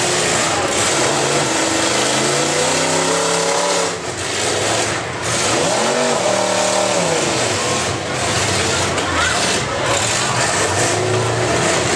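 Big-car demolition derby engines running hard and revving, their pitch climbing and falling over a continuous loud din.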